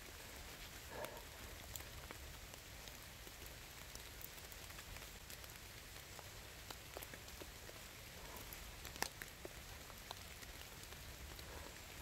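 Faint patter of rain with scattered light ticks, the sharpest about nine seconds in. Soft scratching as gloved fingers loosen damp soil around a wild ginseng root is mixed in.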